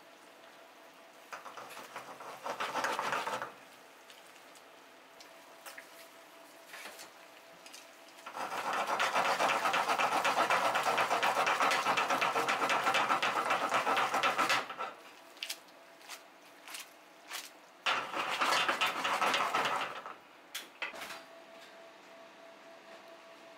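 Cream sauce sizzling and bubbling in a hot frying pan as spaghetti is stirred and tossed in it with metal tongs, with clicks of the tongs against the pan. It comes in three bursts, the longest about six seconds, over a faint steady hum.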